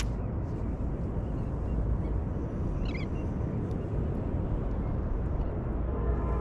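Steady low rumble of wind and water on the microphone out on the open water, with a brief high chirp about three seconds in.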